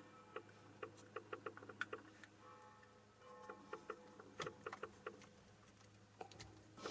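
Faint runs of quick plastic clicks, repeated presses on the small buttons of a cheap infrared car-stereo remote, over a low steady hum.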